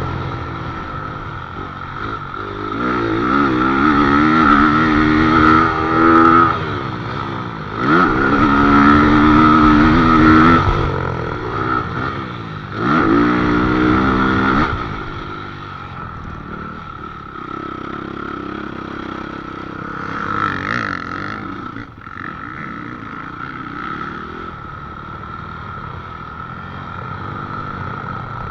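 Motocross bike engine revving hard in repeated rising sweeps as it climbs through the gears, with three loud bursts of throttle in the first half. After that it runs at a lower, steadier throttle.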